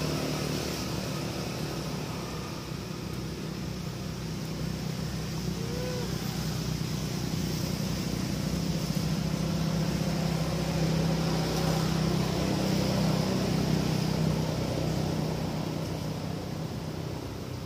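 Steady low hum of a motor vehicle's engine, swelling louder through the middle and easing off near the end, as of a vehicle passing slowly. A faint short chirp about six seconds in.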